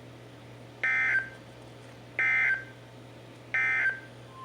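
Three short warbling bursts of NOAA Weather Radio SAME digital data tones, each under half a second and about 1.4 seconds apart: the End of Message code that closes an Emergency Alert System warning. A low steady hum runs underneath, and a steady alert tone begins right at the end.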